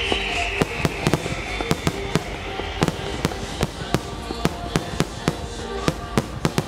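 Fireworks display: a rapid, uneven string of sharp bangs from bursting shells, several a second.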